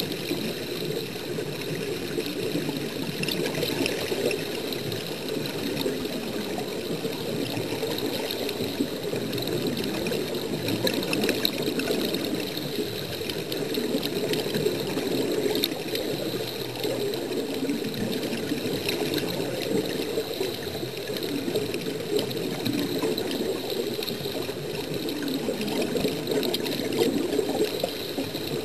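Continuous underwater bubbling from air streaming out of a diving helmet, a steady rush of water with dense small crackles and no breaks.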